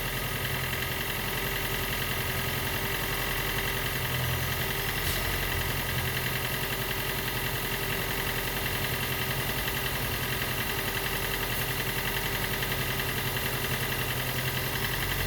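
Toyota Prius Gen 2's 1.5-litre four-cylinder petrol engine running steadily with an even pulse. The engine, which had been failing to start, is now running and charging the high-voltage hybrid battery.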